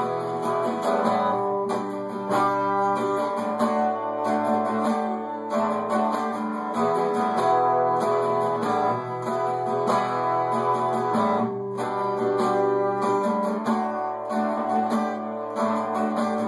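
Strummed acoustic guitar playing an instrumental passage of a song, with no singing.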